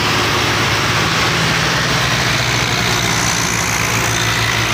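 Diesel farm tractor engines running steadily under load, hauling fully loaded brick trolleys through soft soil: a constant, even drone with a low hum.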